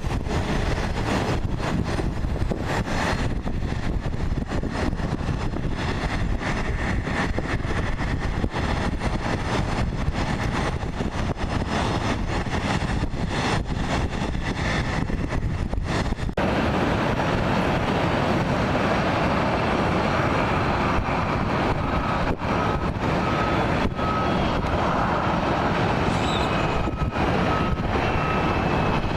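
Jet airliner engine noise: a steady rush that grows stronger about sixteen seconds in, with a faint whine sliding slowly down in pitch near the end.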